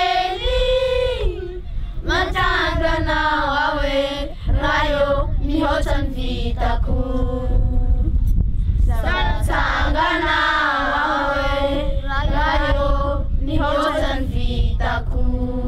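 A group of children singing a song together, unaccompanied, in phrases of held notes with short breaks between them.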